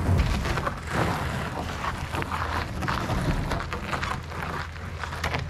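Irregular scraping and rustling as a homemade catamaran of two plastic kayaks under a wooden deck is handled on a sandy bank, over wind noise on the microphone.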